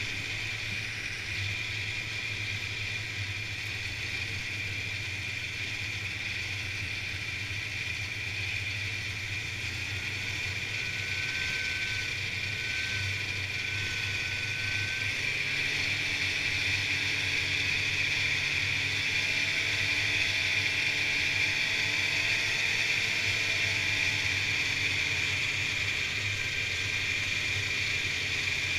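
Polaris Indy snowmobile's two-stroke engine and track running steadily at trail speed, with a steady high whine over the engine note. It gets a little louder from about halfway through.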